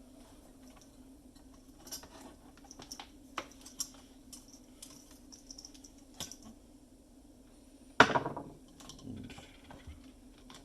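Scattered light clicks and taps of plastic and metal parts being handled while an espresso machine is taken apart, with one much louder knock about eight seconds in. A steady low hum runs underneath.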